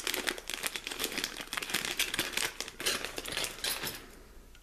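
Clear plastic bag crinkling and rustling as a hand rummages in it for a small precision screwdriver, a dense run of crackles that dies away shortly before the end.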